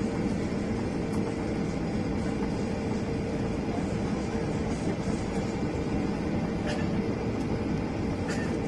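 Boeing 777 jet engines and airflow heard as a steady, even rumble with a constant mid-pitched hum, with a couple of faint ticks near the end.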